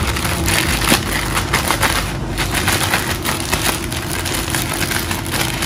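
Plastic zip bag shaken by hand, crinkling and rustling without a break, with raw beef strips being tossed inside it to coat them in cornstarch.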